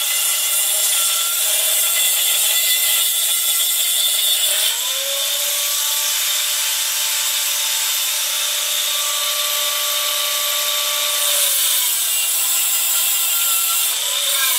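Angle grinder with a cut-off wheel cutting and grinding number four rebar: a continuous loud hiss of the wheel on steel over a steady motor whine. The whine sags in pitch and climbs back about five seconds in and again near the end.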